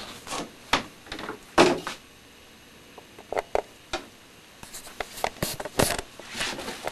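Rummaging through pantry shelves: scattered knocks and clunks of items being moved and set down, with a few louder thuds.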